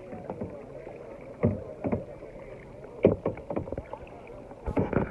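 Kayak paddle strokes: the paddle dipping and splashing in the water several times at uneven intervals.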